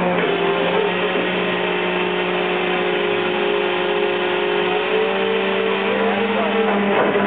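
A fishing boat's engine and deck machinery running steadily, with a couple of steady hum tones that step up slightly in pitch about five seconds in. A brief clatter comes near the end.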